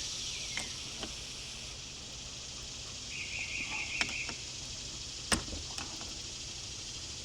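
Outdoor ambience of insects making a high, steady hiss that fades over the first two seconds, with a short bird trill about three seconds in. Several sharp clicks sound through it, the loudest about five seconds in.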